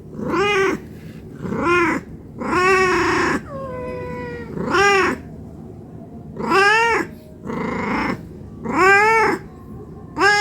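Domestic cat meowing over and over, about eight meows a second or so apart, each rising and falling in pitch, with a flatter, falling call near the middle. The uploader presents the meowing as a hungry cat begging for food.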